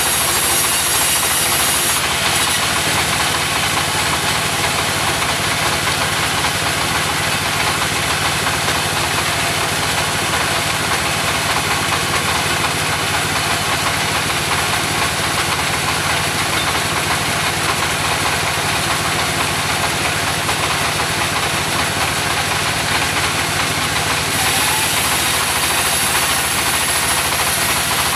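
Portable sawmill running steadily: a constant engine drone under a high hiss that shifts about two seconds in and again near the end.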